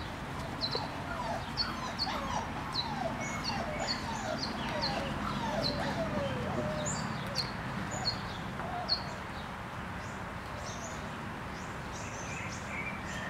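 Young puppies, under five weeks old, whimpering and squealing as they play, in short wavering cries that thin out after the first half. Short high chirps keep repeating throughout.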